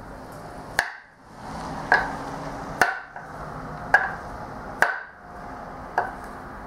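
Mercedes hydraulic flat tappet lifter being banged down onto a wooden board: six sharp knocks about a second apart, working the piston body loose so it starts to come out of the lifter body.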